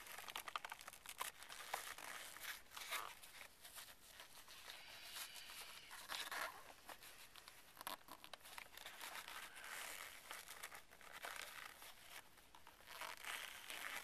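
Fingers pressing and working a small piece of foam rubber into a plastic console latch, giving faint, irregular scratching and rustling with scattered small clicks.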